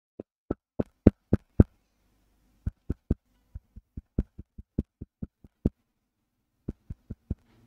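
Quick sharp taps or thumps, about four a second, coming in runs with short pauses and dead silence between them. They are loudest about a second in.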